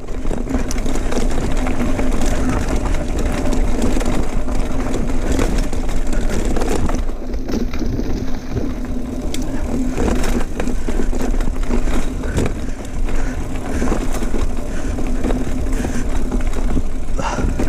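Mountain bike rolling along a dirt trail: a steady rush of tyre and wind noise with a deep rumble and a constant low hum, broken by scattered light clicks and knocks.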